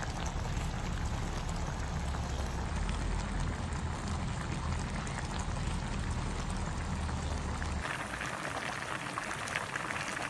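Spicy braised chicken stew bubbling as it simmers: a steady sizzling hiss over a low rumble. About eight seconds in the rumble drops away and the bubbling turns to dense, crisp popping.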